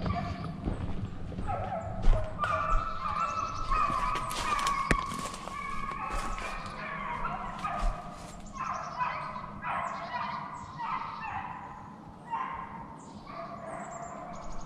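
Deer hounds baying, several dogs' drawn-out calls overlapping one after another, with a sharp knock about two seconds in.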